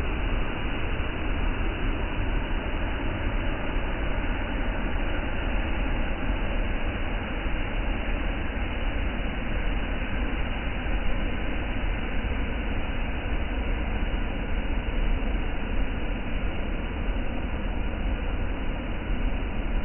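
Waterfall: falling water making a steady, unbroken rush of noise with a deep rumble underneath.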